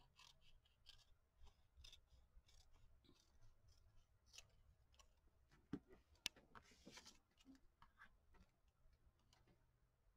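Faint snipping of small scissors cutting paper, with paper being handled and rustled, and two sharp light clicks about six seconds in.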